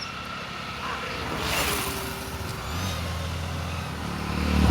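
A motor vehicle's engine running, with a rush of noise about one and a half seconds in and the engine getting louder near the end.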